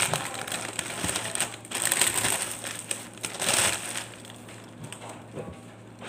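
Plastic fruit packaging crinkling and rustling as a bunch of green grapes is pulled out of it, in several short bursts over the first four seconds, then quieter handling.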